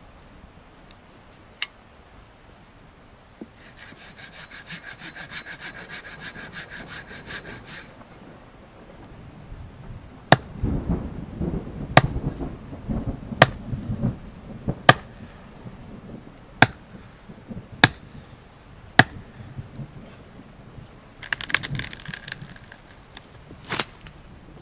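Hatchet chopping into the trunk of a dead standing pine: about seven sharp, woody strikes, one every second and a half or so, each landing solidly in the dry wood. A stretch of fast rasping comes before the chopping and again briefly near the end.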